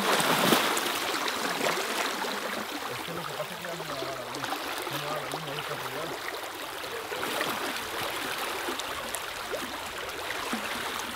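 River water rushing steadily, a strong current flowing, with a brief louder surge of noise right at the start.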